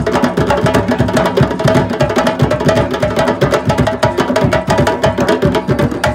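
A group of djembes and other rope-tuned hand drums played together by hand in a fast, dense, continuous ensemble rhythm.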